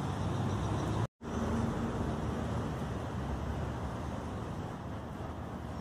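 Steady road traffic noise, mostly low-pitched, with the sound dropping out completely for an instant about a second in.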